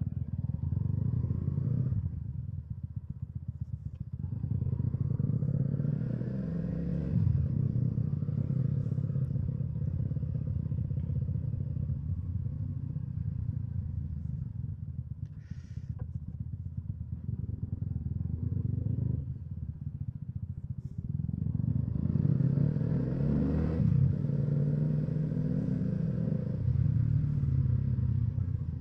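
Motorcycle engine running under way, rising in pitch as the rider accelerates around six seconds in and again around twenty-three seconds in.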